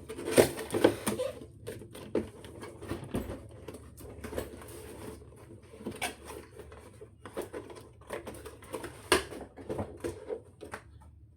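Cardboard box and packaging of a bicycle cassette being opened and handled: a run of irregular taps, clicks and rustles, the sharpest knocks about half a second in and just after nine seconds.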